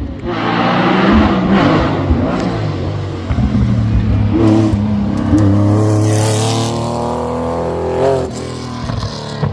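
Historic racing car engine revving hard and accelerating, its pitch climbing and dropping several times.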